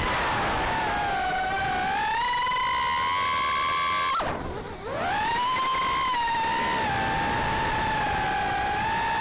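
Brushless motors and props of a 2.5-inch Armattan Tadpole quadcopter on 3S whining in flight, recorded by its onboard camera. The pitch wavers up and down with the throttle. About four seconds in, the throttle is chopped: the whine dives in pitch and drops in level, then spins back up within a second.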